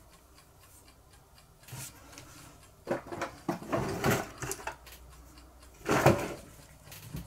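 Handling sounds from a small metal butane lighter canister being turned in the fingers: a run of short scrapes and knocks about three to five seconds in, and one louder knock around six seconds. A faint, steady ticking runs underneath.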